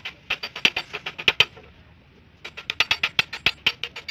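Hammer striking a cold chisel into the rusted lower body panel of a 1988 Toyota Corolla, giving sharp metallic strikes. A few spaced blows come first, then a pause of nearly a second, then a quick run of about six taps a second.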